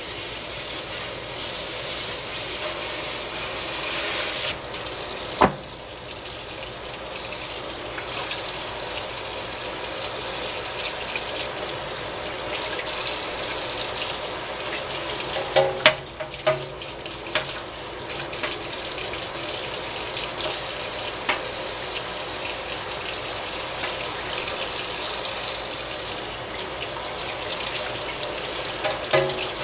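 Kitchen faucet running steadily into a stainless steel sink while raw fish pieces are rinsed by hand under the stream. A sharp click about five seconds in and a few small knocks around the middle and near the end.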